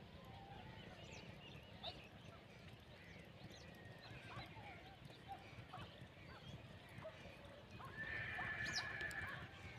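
Faint open-field ambience with scattered small bird chirps, and about eight seconds in a louder drawn-out horse whinny lasting over a second.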